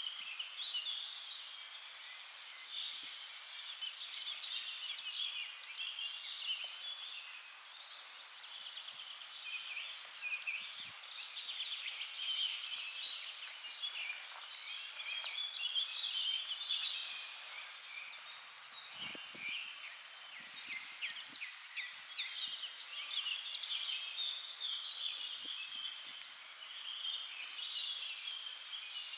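Several birds singing and calling at once, a busy, overlapping mix of chirps and trills. A few soft low thuds come about two-thirds of the way through.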